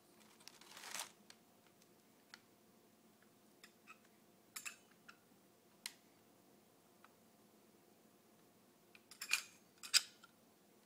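Scattered light metal clicks and taps from hands handling an opened hard drive and its platters, with a brief rustle about a second in and the loudest clusters of clicks near the end.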